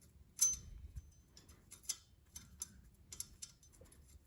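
Bicycle chain links clicking and ticking as a freshly re-pinned link is worked back and forth by hand, in a run of faint, irregular clicks with the loudest about half a second in. The rejoined link is still a little tight, pinching slightly.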